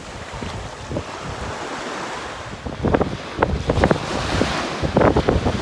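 Ocean surf washing onto a beach, with wind buffeting the microphone and a few short louder noises about three to five seconds in.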